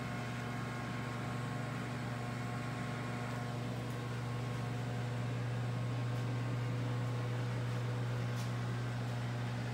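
Steady low hum with an even hiss: workshop room tone, with no distinct event standing out.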